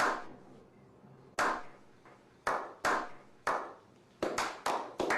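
A series of sharp hand claps, each ringing out briefly: a few spaced out at first, then coming faster near the end.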